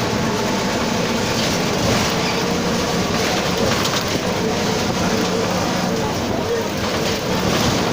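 Mercedes-Benz OF 1721 BlueTec 5 city bus running steadily under way, its driveshaft (cardan) growling loudly over the engine and road noise.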